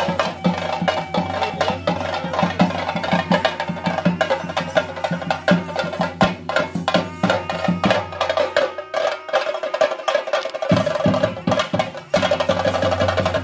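Chenda drums played with sticks in dense, rapid strokes, as the accompaniment to a theyyam ritual dance. The low drum strokes drop away for a few seconds past the middle and come back abruptly near the end.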